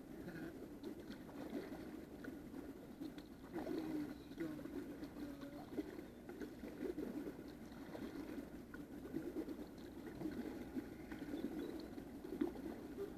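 Faint, irregular sloshing of kayak paddle strokes and water against the hull of a sit-on-top kayak moving on calm water.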